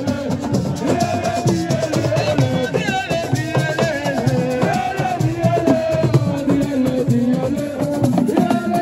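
Loud music with a shaken rattle and a dense percussive rhythm.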